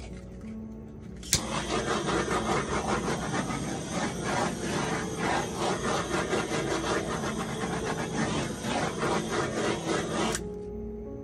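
Small airbrush compressor switched on with a click about a second in, running with a rough, fast-pulsing rasp as it blows air across wet acrylic paint, then switched off with a click near the end.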